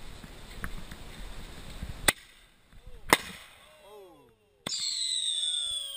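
Consumer fireworks going off: two sharp bangs about a second apart, then, from about four and a half seconds in, a loud whistle falling in pitch.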